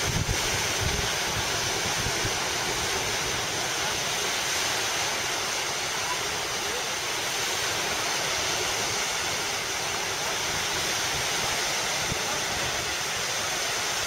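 Continuous, even wash of wind-driven lake waves breaking on a sandy beach.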